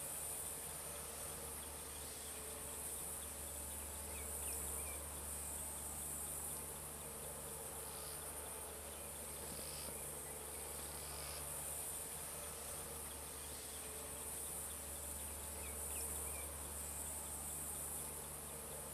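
Steady, high-pitched chorus of insects such as crickets, trilling without a break, with a faint low hum underneath.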